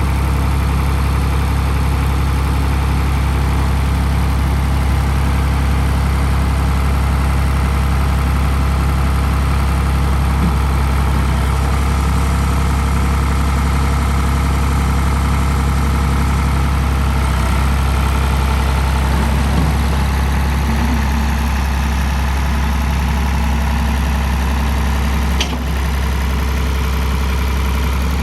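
Ford 545 backhoe loader's engine idling steadily, with a single brief click near the end.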